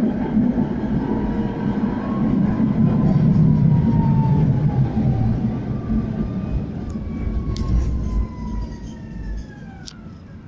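Tram running along the street, heard from inside the car: a steady low rolling rumble with a faint electric motor whine that falls slowly in pitch. It grows quieter near the end as the tram slows, with a couple of sharp clicks.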